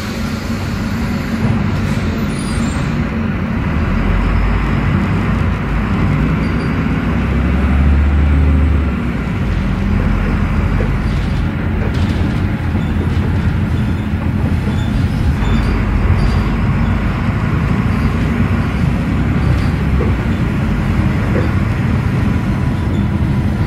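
Cabin sound of a Volvo B9S articulated bus under way: its Volvo D9B six-cylinder diesel running through the Voith automatic gearbox, over a steady low rumble of road noise. The engine rumble grows a little louder about eight seconds in, then eases, with a few short clicks later on.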